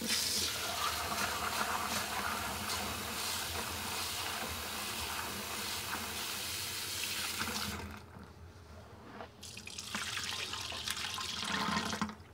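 Kitchen tap running into a stainless steel pot of soaked soybeans in a steel sink, the water churning as a hand rubs the beans. The flow stops about eight seconds in, then water splashes again as the pot is tipped and drained into the sink.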